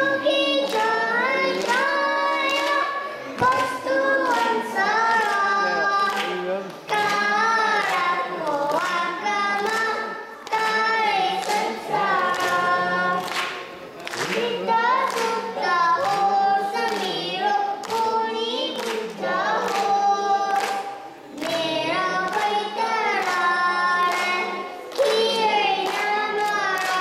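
A young girl singing a melodic song unaccompanied into a handheld microphone, in phrases with short breaks between them.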